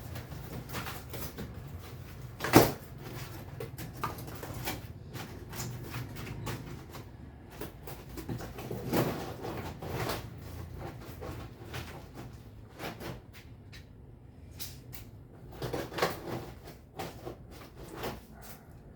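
Irregular knocks and clatter of objects being handled and worked on by hand, with one sharp knock about two and a half seconds in and a few more scattered through.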